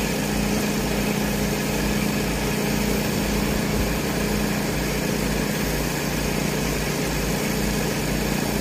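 Tracked hydraulic excavator's diesel engine idling steadily, a constant low hum.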